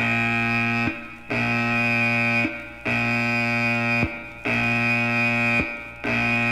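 A harsh buzzing alarm-like tone sounding in repeated blasts, each about a second long with short gaps between, its pitch sagging briefly as each blast cuts off.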